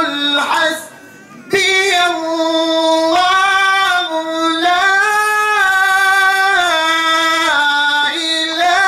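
A man's high solo voice chanting a devotional Mawlid song into a microphone, unaccompanied, in long held notes that step up and down in pitch. There is a brief pause for breath about a second in.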